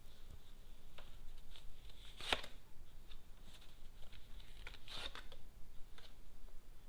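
A deck of Lenormand cards being handled, with soft rustles and light card snaps. The sharpest snap comes about two seconds in, and a few more follow around five seconds.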